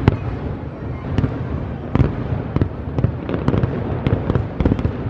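Aerial fireworks bursting at a distance: irregular sharp bangs and crackles over a steady low rumble, coming faster toward the end.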